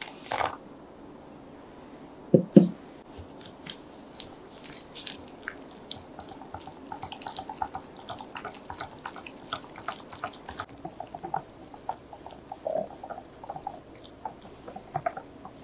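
A wire whisk beating batter in a glass bowl, its wires clicking quickly and unevenly against the glass, heavier at first and lighter after about ten seconds. Two knocks of glass about two and a half seconds in are the loudest sounds.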